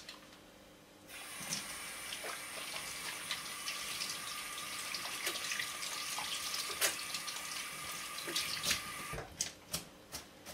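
Kitchen tap running into a stainless steel sink while soapy hands are rinsed under it, a steady splashing hiss. The water comes on about a second in and stops near the end, leaving a few drips and clicks.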